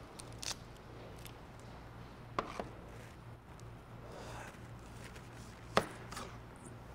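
Knife cutting on a cutting board: a few separate sharp knocks spaced seconds apart, the loudest near the end, over a low steady hum.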